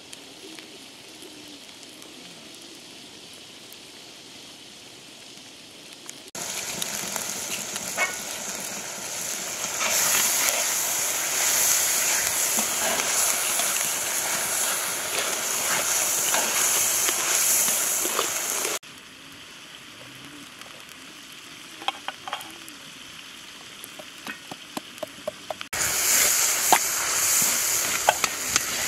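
A knife slicing through bell peppers, the blade making crisp clicks. A loud steady hiss comes in suddenly and cuts off suddenly, twice.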